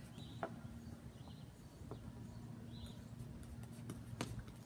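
Quiet outdoor ambience with a few faint, short bird chirps and a faint steady hum, broken by a sharp click near the end.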